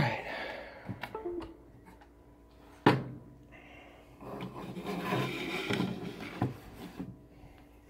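Objects being handled on a work surface: a single sharp knock about three seconds in, then a couple of seconds of rubbing and shuffling.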